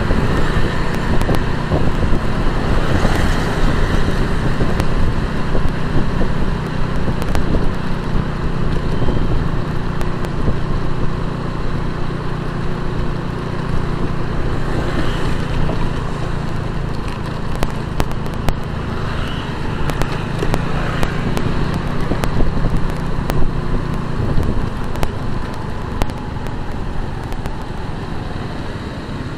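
Motorcycle riding through city traffic: steady wind noise on the microphone over the engine and road traffic noise.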